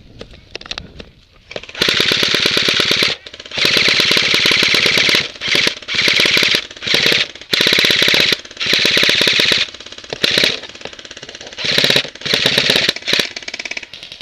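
Airsoft automatic electric gun firing full-auto: a string of long rapid bursts close by, the first about two seconds in, stopping and starting again many times.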